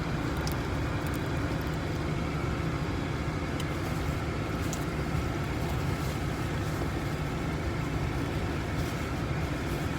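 Steady rumble of a car's engine and road noise inside the cabin while driving, with a few faint clicks over it.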